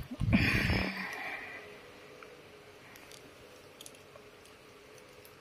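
A short burst of rustling and rubbing noise in the first second, then a quiet room with a few faint clicks and a faint steady hum.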